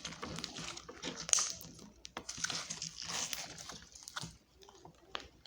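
Sparkly slime being squished and pressed in the hands, giving irregular crackles and small clicking pops.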